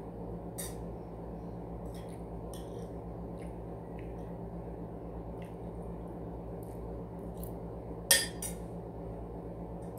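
Spoon and fork clinking and scraping on a ceramic dinner plate while eating: scattered light taps, with one louder clatter about eight seconds in, over a steady low hum.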